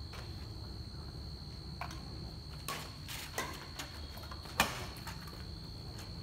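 Badminton rackets hitting a shuttlecock in a rally: about four sharp pops a second or so apart, the loudest about four and a half seconds in, over a steady high whine and low hum.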